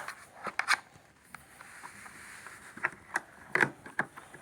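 A few short clicks and scrapes, like something being handled, with no vacuum motor running.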